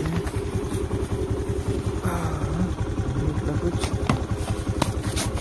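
Small motor scooter's engine running steadily, with a few sharp knocks near the end.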